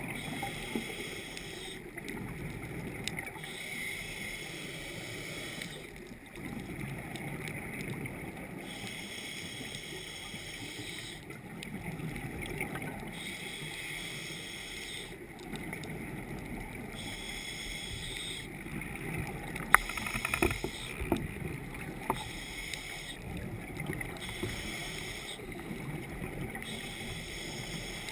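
Scuba diver breathing underwater through a regulator: a slow, even cycle of inhaling and exhaling bubbles repeating about every four to five seconds. A few sharp clicks about two-thirds of the way through.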